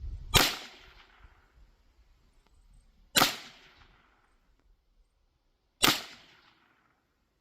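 Three shots from a Huben GK1 Mini .30 calibre PCP air pistol, each a sharp crack that dies away over about a second, fired roughly two and a half to three seconds apart.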